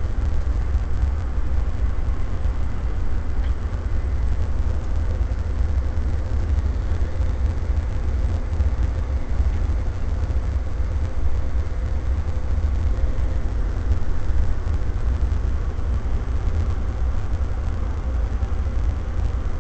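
Steady low rumble of a tour coach cruising at motorway speed, heard inside the passenger cabin: engine and tyre noise with a faint steady hum.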